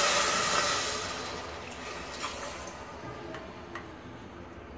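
Water poured from a small bowl into a steel pot of sugar, a loud splash that fades away over the first couple of seconds, followed by a few small clicks. The water is being added to the sugar for a sugar syrup.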